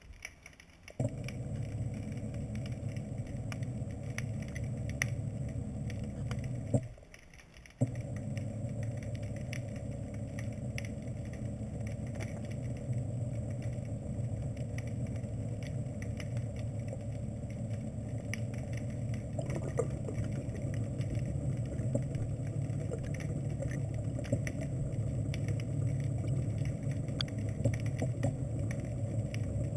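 Electric thruster motors of a home-built ROV running underwater, a steady hum with a thin high whine; they cut out for about a second roughly seven seconds in, then start again.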